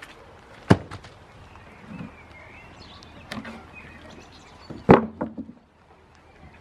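Knocks of wooden pallets and a heavy paving slab being moved and set down: a sharp wooden knock under a second in, then a loud heavy thud about five seconds in as the slab is laid on the ground, with a few smaller knocks after it. Faint bird chirps in between.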